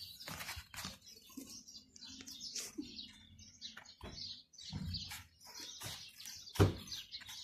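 Scissors cutting through a sheet of craft foam: a run of short, irregular snips, with a louder knock a little before the end.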